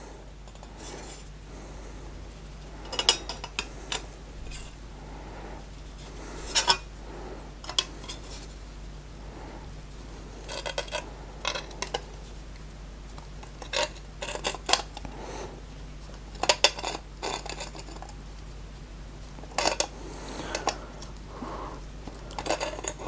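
Pliers gripping and bending a tab on a thin sheet-metal forge plate: irregular metallic clicks, clinks and scrapes every second or few, some in quick little clusters.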